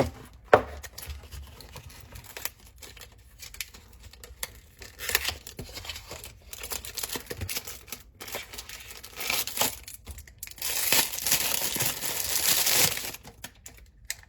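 Plastic packaging crinkling and rustling as a battery charger is unwrapped by hand, with a sharp click about half a second in and a louder stretch of crinkling near the end.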